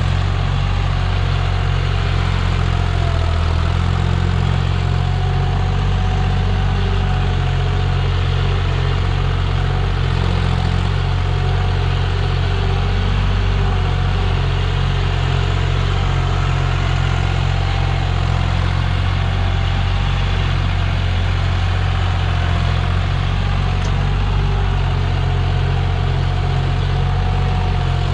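John Deere 5105 tractor's three-cylinder diesel engine running steadily under load as it hauls a loaded soil trolley, a constant low engine drone.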